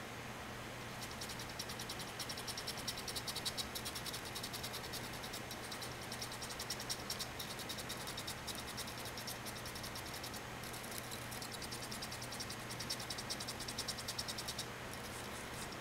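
Hobby servos of a small acrylic robot arm running as the arm moves a marker across paper: a rapid, high-pitched buzzing chatter that starts about a second in and breaks off briefly twice, over a faint steady low hum.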